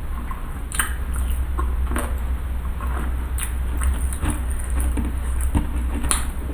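Close-miked chewing of cireng, a chewy fried tapioca snack filled with shredded chicken: many small irregular mouth clicks and smacks, over a steady low hum.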